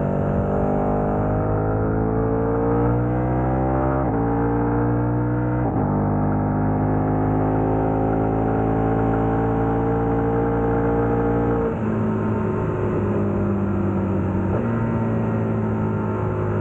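KTM 1290 Super Adventure's V-twin engine through a Wings aftermarket exhaust, under acceleration: the pitch climbs, drops sharply at upshifts about four and six seconds in, climbs slowly through a long pull, then falls to a lower, rougher note about twelve seconds in as the throttle is rolled off.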